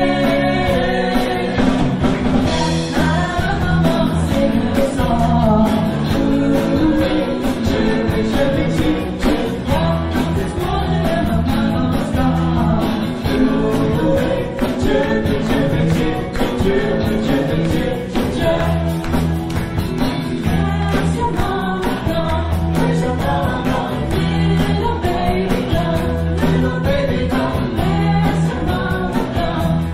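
Live band playing a seventies pop song: sung vocals over guitars and drums, with a steady beat.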